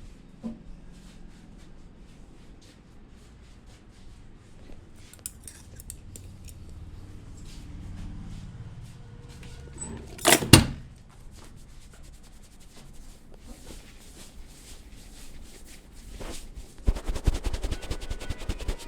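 Hands at work in a head and body massage: scattered light clicks and taps, a loud double smack about ten seconds in, then fast rhythmic rubbing in the last two seconds.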